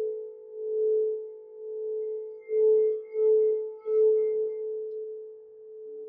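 Quartz crystal singing bowl sounding one steady, pure tone that swells and fades in a slow pulse as it is played with a mallet. About halfway through come three louder, quicker swells, each with a faint scrape under it.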